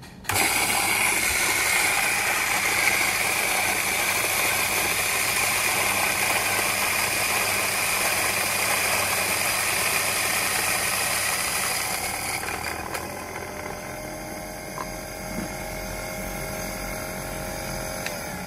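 Small electric burr coffee grinder grinding coffee beans. It starts suddenly and runs steadily, then turns quieter and thinner with a steady whine about twelve seconds in, and stops at the end.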